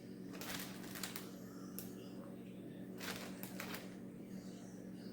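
Two short bursts of rustling or scraping handling noise, about half a second in and again about three seconds in, over a steady low hum.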